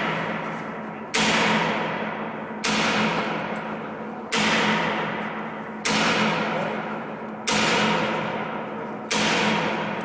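Heavy hammer blows on steel tank parts, six evenly spaced strikes about one every second and a half, each leaving a long metallic ring that fades before the next blow.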